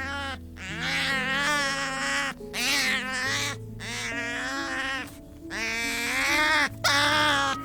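Cats meowing: about six separate drawn-out meows, one after another, each bending in pitch.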